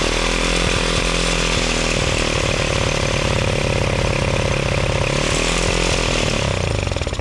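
X18 pocket bike's small two-stroke engine running on choke just after starting, on a newly fitted carburetor, its pitch wavering up and down a little. It drops away at the very end.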